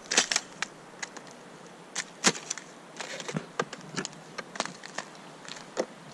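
Footsteps in sandals on gravel and the thin ice of a frozen puddle: irregular sharp cracks and crunches as the ice skin breaks underfoot, the loudest snap just over two seconds in.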